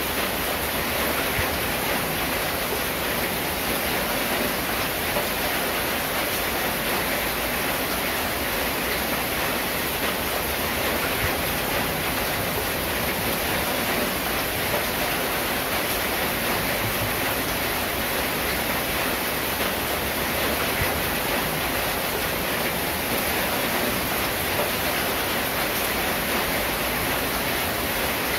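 Steady rain falling on a corrugated zinc roof and clay tiles, an even dense hiss with no let-up.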